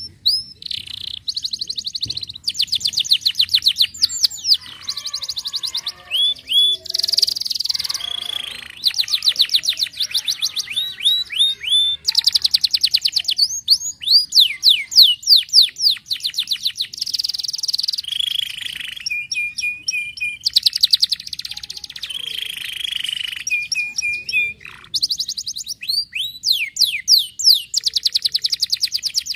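Domestic canary singing a long song of rapid trills. Each phrase is a fast run of one repeated note, many of them sweeping downward, and the song switches to a new phrase every second or two.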